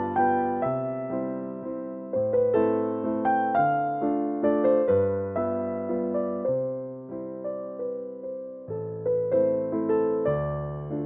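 Background music: keyboard notes struck and fading, playing chords under a melody.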